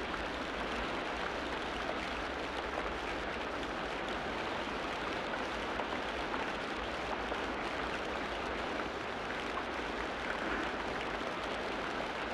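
Ocean surf washing onto a sandy beach: a steady rushing hiss of breaking waves and foam, even in level throughout.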